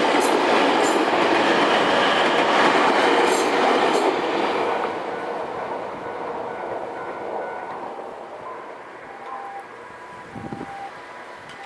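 Nankai Koya Line train passing over a level crossing: a loud rumble of wheels on the rails with a few sharp clicks, fading away after about four or five seconds as the train moves off.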